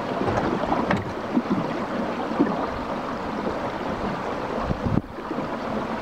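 Water rushing and lapping along the hull of a wooden flat-bottomed sailing boat (a futreau) under way, with wind buffeting the microphone. A steady noise, briefly dropping about five seconds in.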